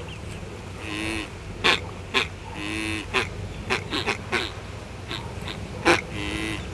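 Short nasal animal-like calls, like quacks or grunts, heard about three times, among a scatter of sharp clicks and knocks.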